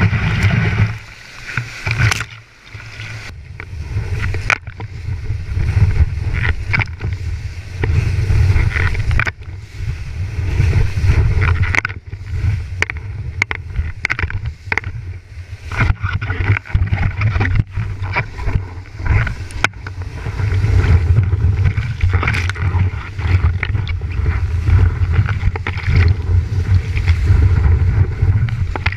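Whitewater of a river standing wave rushing and splashing against a board-mounted GoPro's waterproof housing: a deep, muffled rumble with many sharp splash hits on the case. The sound drops away briefly about a second in, then returns.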